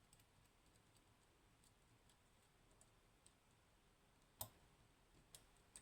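Faint, scattered small metallic clicks of a lock pick working the pins of a high-pin-count Codkey Locksys lock, with one sharper click about four and a half seconds in and two lighter ones near the end.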